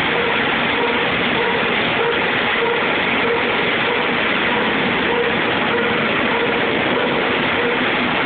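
Steady mechanical noise of machinery running, with a faint tone that comes and goes.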